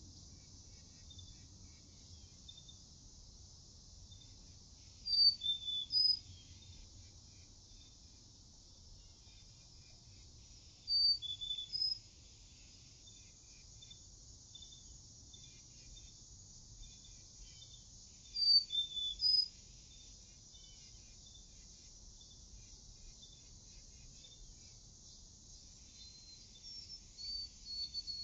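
Outdoor ambience: a loud, high chirping phrase of a few quick notes, about a second long, repeats four times roughly seven seconds apart, over faint steady insect ticking and a low rumble.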